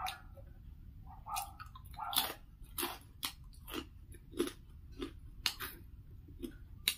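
Close-miked chewing and mouth sounds of someone eating rice and curries: wet smacks and small crunches, about two a second from about two seconds in, over a steady low background hum.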